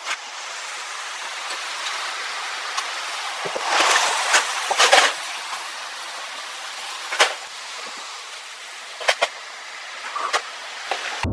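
Nerf darts being fired and landing: a few sharp clicks and taps over a steady hiss, with a louder flurry of clicks about four to five seconds in.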